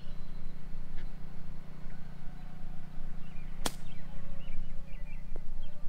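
Golf club striking a ball out of thick rough: a single sharp hit about three and a half seconds in, over a steady low hum.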